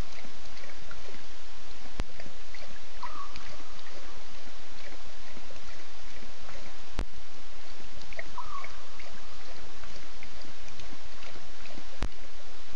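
Night-time bush ambience: a steady hiss, with a short mid-pitched call, a quick chirp trailing into a held note, heard twice about five and a half seconds apart, and a sharp click every five seconds.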